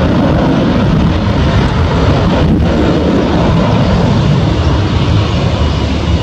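Airbus A330-200 jet airliner on its takeoff roll, its twin engines at takeoff thrust giving a loud, steady, deep rumble.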